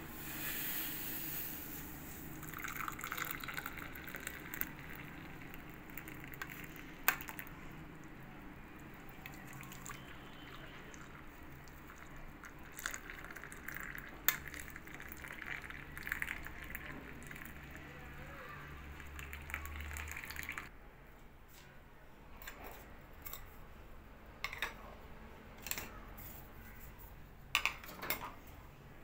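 Hot milky tea pouring from a pan through a metal tea strainer into china cups, a steady trickling splash with an occasional click. It stops about two-thirds of the way through, and a few sharp clinks of cups and spoons follow near the end.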